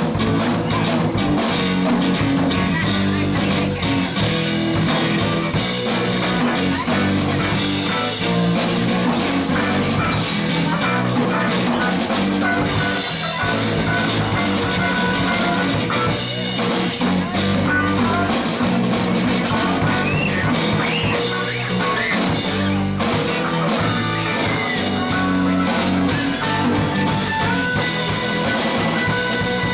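Live rock band playing an instrumental passage on guitars, bass guitar and drum kit, with a guitar line that steps upward in pitch near the end.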